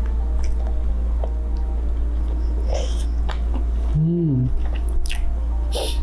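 Close-up mouth sounds of a man eating chicken off the bone: wet chewing with a few sharp, crunchy bites. A short hummed 'mm' comes about four seconds in.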